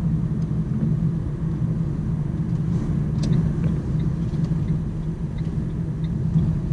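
Van's engine and tyre noise heard inside the cabin while driving along a road: a steady low rumble.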